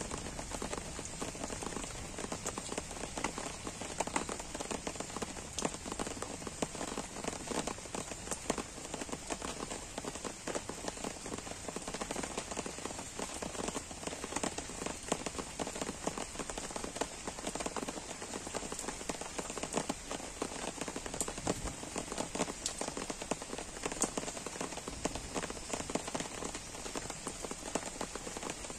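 Soft, gentle rain falling steadily on trees and grass, with many single drops ticking close by.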